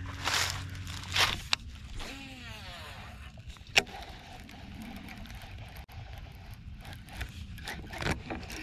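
Footsteps crunching in dry fallen leaves, then a baitcasting reel: a short whir falling in pitch, one sharp click a little before halfway, and quieter steady cranking as the line is reeled in.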